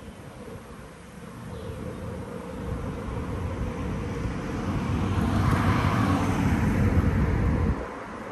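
A motor vehicle passing close on a city street: its engine and tyre noise builds steadily, then drops away abruptly near the end.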